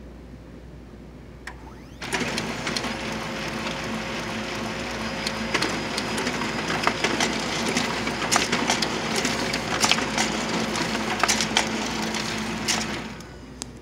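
HP LaserJet 4240n mono laser printer printing a page: its mechanism starts suddenly about two seconds in and runs steadily with repeated sharp clicks, then winds down near the end as the sheet lands in the output tray.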